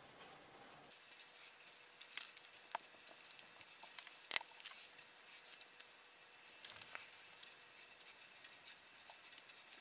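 Faint rustling and small scattered clicks of hands working casting sand in a wooden mold box while a metal can is set into the sand, with one sharper click about four seconds in and a short flurry of clicks near seven seconds.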